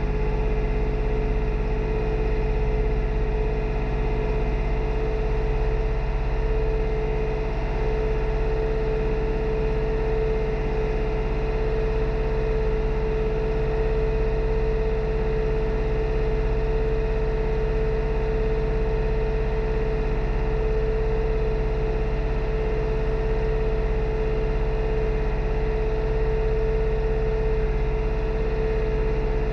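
New Holland tractor engine running steadily under load while tilling a field, with a steady whining tone over the engine note and no change in speed.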